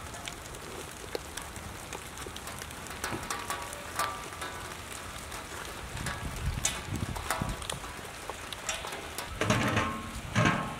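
Wood fire crackling: a steady hiss dotted with sharp crackles and pops, louder for about a second near the end.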